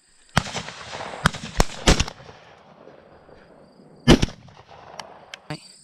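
Shotgun shots at a passing dove: several sharp reports in the first two seconds, then the loudest one about four seconds in.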